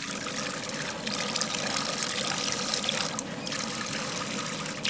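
Water spraying from the hand-held shower head of a Companion Aqua Cube portable gas camping shower into a bucket of water: a steady splashing hiss, with a short dip a little past three seconds in.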